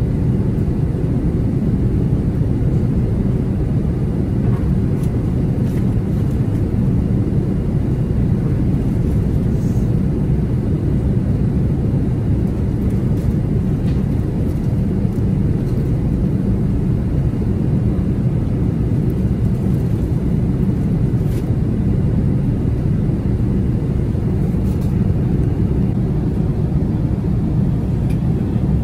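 Steady low rumble of an Airbus A380-800's engines and airflow heard inside the passenger cabin during the climb after takeoff.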